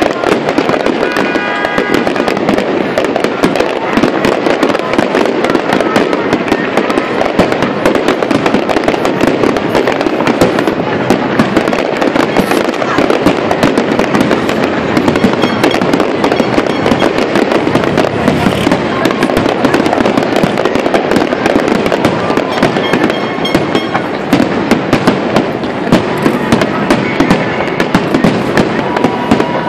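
Large aerial fireworks display firing a dense, continuous barrage: bangs and crackles packed closely together without a break.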